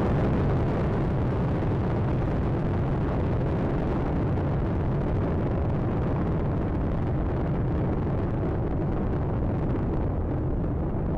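Space Shuttle Atlantis's solid rocket boosters and three main engines during ascent: a steady, heavy low rumble.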